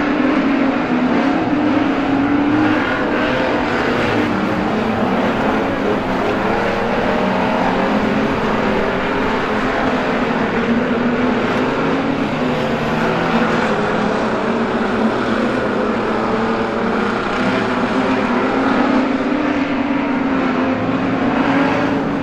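A pack of street stock race cars racing on a dirt speedway oval, several engines running hard at once in a steady, overlapping drone, their pitch rising and falling as the cars pass.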